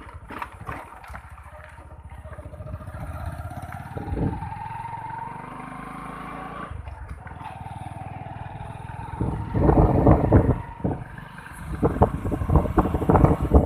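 Motorbike engine running on the move, with a whine that rises in pitch as it picks up speed about halfway through. Loud, gusty wind noise hits the microphone in the last few seconds.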